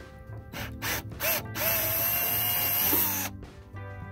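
Cordless drill boring out a stripped screw hole in a soft-metal RV stove burner to enlarge it for a rivet. Two short spurts of the drill come first, then about a second and a half of steady drilling with the motor whining, which stops near the end.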